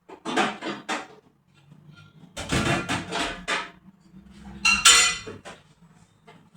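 Household clatter of dishes and kitchenware being handled and set down: several bursts of knocks and scrapes, with a sharper ringing clink about five seconds in.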